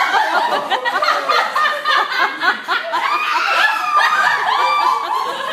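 A small group of people laughing loudly, several voices overlapping.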